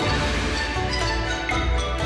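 Instrumental background music with a steady bass line.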